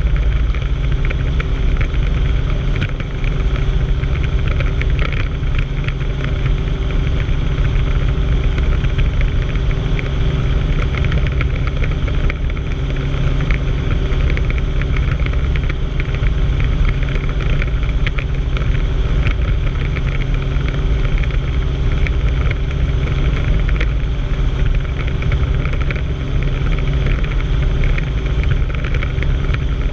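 Helicopter in steady cruise flight, its engine and rotor noise heard from inside the cabin as a loud, steady drone.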